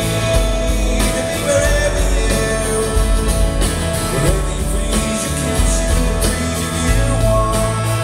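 Live rock band playing, with acoustic guitar strummed over bass, and singing.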